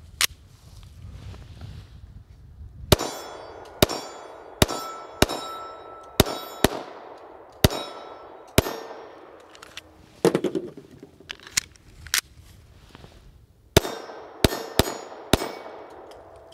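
A Smith & Wesson EZ pistol fires a string of about fifteen shots at an uneven pace, starting about three seconds in, with a short pause before the last few. Steel plate targets ring out after the hits.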